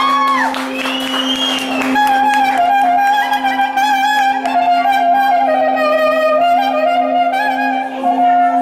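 Clarinet playing an ornamented dance melody over a steady held keyboard drone, in Armenian band style.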